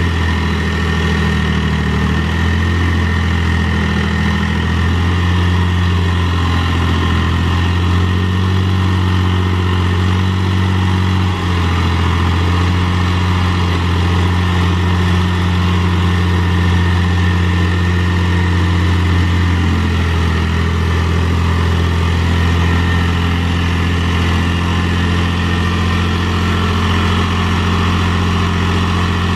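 Mahindra 3525 tractor's three-cylinder diesel engine running steadily under load while it drags a box blade through dirt.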